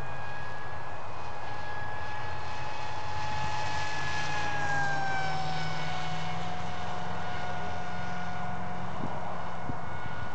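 Electric motor and propeller of a Dynam Hawksky RC plane whining steadily as it makes a fly-by, its pitch dropping about halfway through as it passes. A low hum runs underneath.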